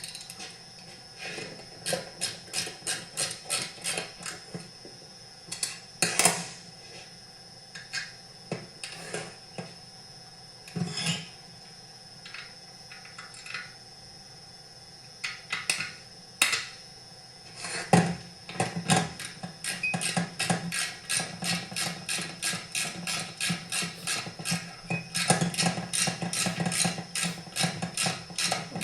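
Hand ratchet clicking in quick runs of about four clicks a second as screws are run in, with single metal clinks and knocks between the runs; a long steady run of clicking starts about two-thirds of the way in.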